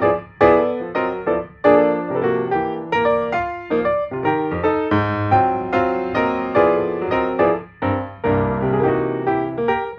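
Background music: a piano melody with notes struck about once or twice a second, each ringing and fading.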